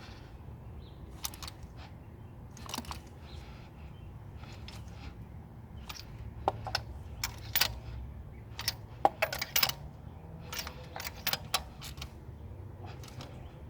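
Hand tools and small metal parts clinking and tapping in irregular clicks, sparse at first and more frequent from about halfway through, over a low steady hum.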